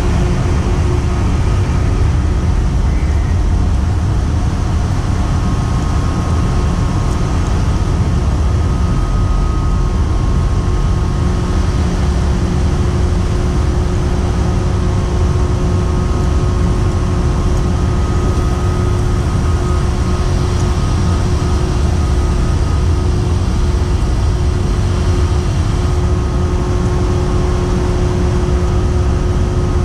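Steady low rumble of a ship's machinery with a constant mid-pitched hum, unchanging throughout.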